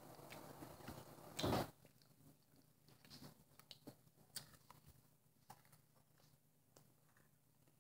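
Faint chewing and mouth sounds of candy being eaten, with scattered small clicks and one brief louder noise about one and a half seconds in.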